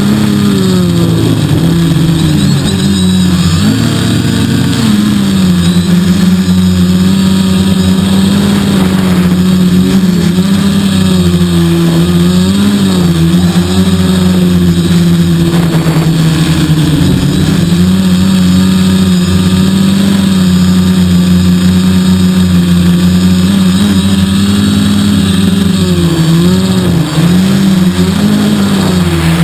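3DR quadcopter's electric motors and propellers buzzing loudly, the pitch wavering up and down as the motors speed up and slow down to hold the craft in strong wind.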